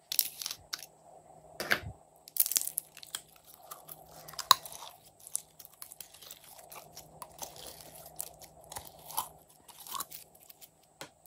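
Blue glitter slime being squeezed out of its soft plastic pot and squished between the fingers, making an irregular run of crackles and clicks.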